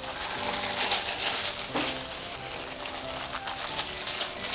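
Wax paper crinkling and rustling as a sheet of rolled cookie dough on it is lifted and turned over, strongest in the first two seconds, over background music with held notes.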